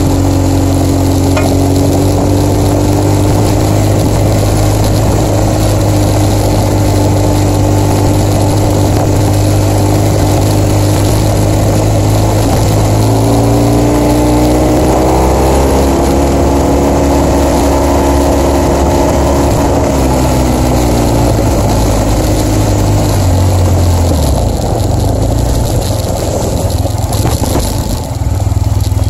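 BMW R1200GS motorcycle's boxer twin engine running under way, over a steady hiss of wind and tyres on gravel. About halfway through, the engine note rises as the rider accelerates, then falls back. Near the end the engine's deep note drops away and the sound dips briefly.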